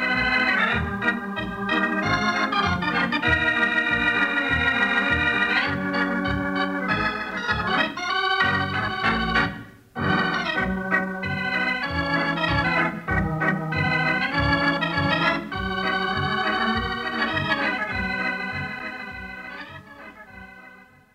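Organ music playing the closing theme of a radio broadcast: sustained chords over a pulsing bass line. It breaks off briefly about halfway through, then fades out at the end.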